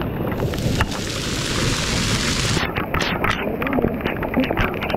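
Heavy rain pelting close by, with many scattered sharp ticks of drops striking and wind buffeting the microphone as a low rumble.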